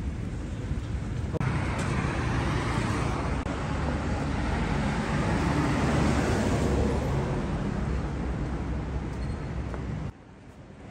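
Street traffic noise, a steady rush of passing cars that swells and fades over several seconds, then cuts off abruptly near the end.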